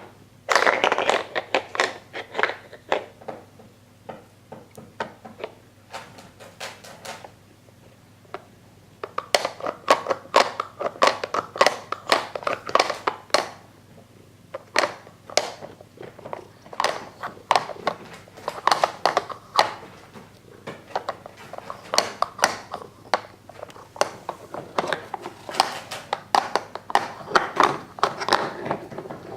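Hollow plastic bones of a Dog Smart treat puzzle clattering and knocking against its plastic disc as a cat paws and noses at them, in irregular runs of sharp clicks and taps with short pauses between.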